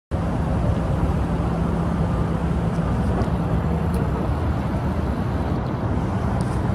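An engine running steadily: a low rumble with a faint steady hum.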